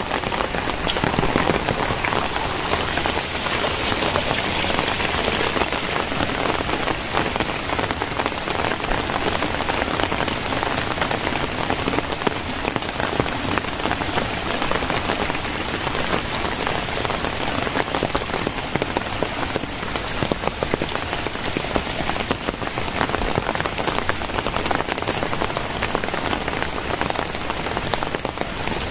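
Very heavy rain falling steadily: a dense, even hiss packed with countless drop impacts.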